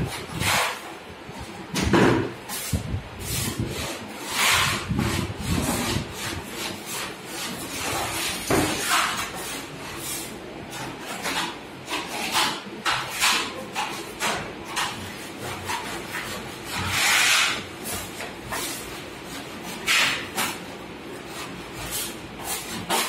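Putty knife scraping wall putty across a cement wall in repeated strokes, an irregular run of short scrapes with a few longer drawn-out ones.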